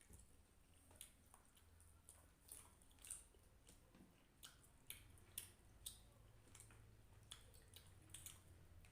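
Faint close-up chewing of a mouthful of rice and hilsa fish curry, with irregular soft clicks from the mouth a few times a second.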